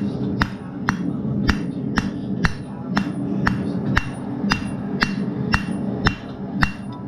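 Blacksmith's hand hammer striking a red-hot steel bar on an anvil about twice a second, drawing it out to a squared point; each blow gives a sharp clang with a short metallic ring.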